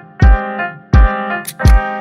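Background music: electronic keyboard chords over a deep, heavy beat, about one beat every two-thirds of a second, with a sharp high tick joining near the end.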